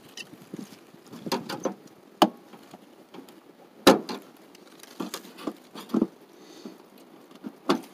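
Hands tugging and scraping at plastic ribbons caught in the underside of a rusty car body: irregular rustling and scraping, with sharp knocks about two and four seconds in and again near the end.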